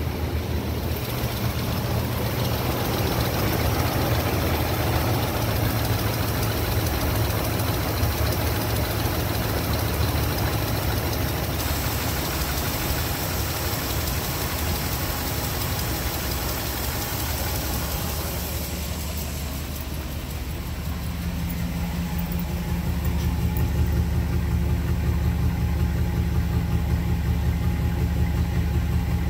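2002 Dodge Ram 1500's 4.7-litre Magnum V8 idling steadily. First it is heard at the open engine bay, with a mix of running-engine and accessory noise. In the last third it is heard at the tailpipe, where the exhaust's low, even pulsing is louder.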